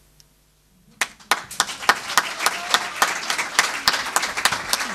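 A short hush, then an audience bursts into applause about a second in, many hands clapping and building quickly into steady applause.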